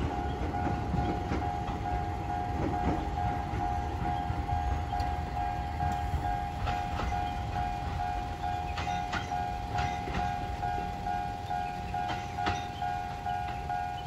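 Japanese level-crossing warning bell ringing steadily in an even electronic pulse, over the low rumble of a train running away on the line. Sharp wheel clicks over rail joints and points come in the second half.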